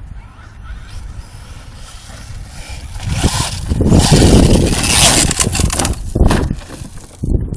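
Brushless-converted HPI Savage RC monster truck driving over dirt and gravel toward the listener, its drivetrain and tyres growing much louder as it closes in. The sound peaks about four to five seconds in as it passes close by.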